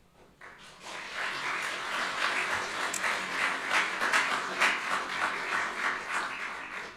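Congregation applauding. The clapping builds about half a second in, carries on steadily and tails off near the end.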